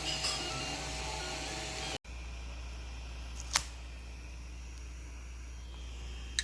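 A 3D printer's stepper motors whining in shifting tones, cutting off suddenly about two seconds in. Then a steady low hum with one sharp click midway.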